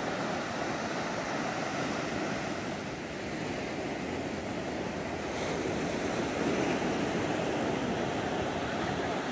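Ocean surf breaking and washing up a sandy beach: a steady rushing hiss of waves that grows a little louder about two-thirds of the way through.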